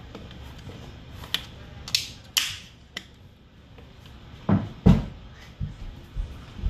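A few sharp clicks and short scrapes of things handled on a kitchen counter, then a run of dull thumps in the second half, about two a second, as she walks off across the floor.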